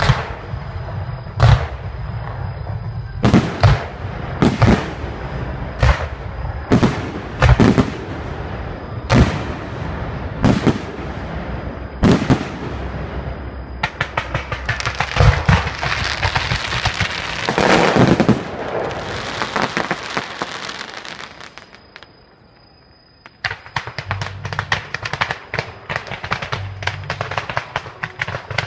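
Fireworks display: a string of sharp shell bursts about once a second, then a long dense crackling of many small bursts. This dies away briefly, and a rapid run of crackles starts again near the end.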